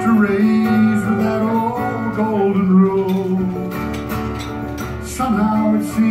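Folk song performed live: acoustic guitar played under a man's sung vocal line.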